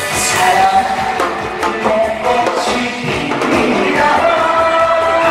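A man singing a Korean trot song live into a microphone over backing music with a steady beat, holding long notes.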